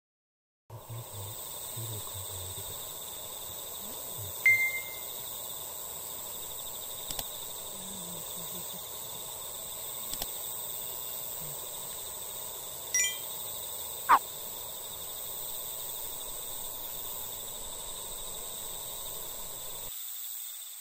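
Quiet outdoor evening ambience: a steady high hiss, with three short chirps, the first about four seconds in and two more close together about halfway through.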